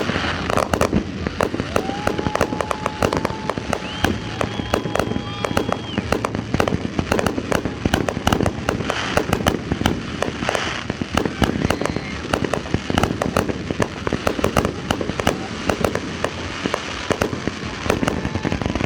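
Fireworks display going off in a dense, continuous barrage of rapid bangs and crackles, many per second, with a couple of steady whistle-like tones held for a few seconds near the start.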